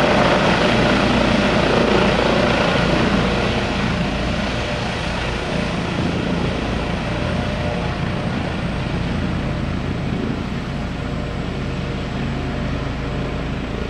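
Twin-turbine Eurocopter Dauphin-family helicopter running close by, its engines and main rotor turning as it hovers low and sets down. The sound eases a little about three seconds in and then holds steady.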